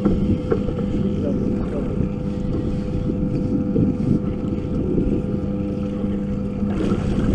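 Outboard motor idling steadily, with wind buffeting the microphone.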